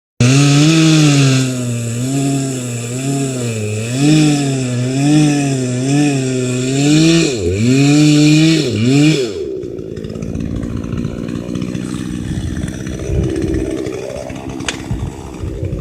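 Gasoline chainsaw engine running at high speed, its pitch rising and falling about once a second. About nine and a half seconds in it drops to a lower, rougher idle.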